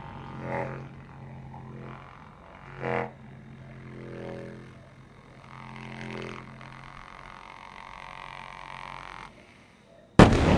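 Trumpet played with extended technique: a low buzzing drone with swells of higher tones, which stops about nine seconds in. Under a second later comes a sudden loud bomb explosion, the loudest sound here, its rumble carrying on.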